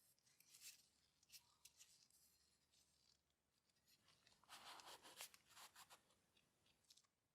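Near silence with faint, scattered scratching and light clicks, busiest a little past the middle.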